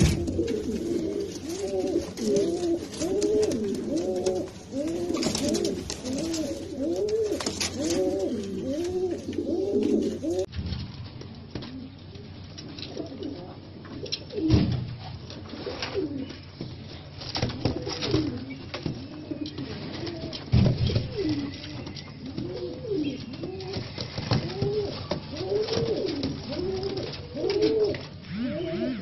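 American fantail pigeons cooing: a continuous run of repeated coos, each rising and falling in pitch, with a couple of short dull thumps partway through.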